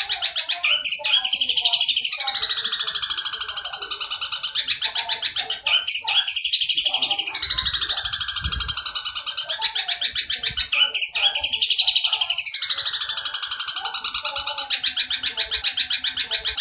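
Long-tailed shrike giving a fast, harsh pulsed chatter in imitation of an Oriental dollarbird's call. Each run starts high and slides down in pitch, and starts afresh about every five seconds.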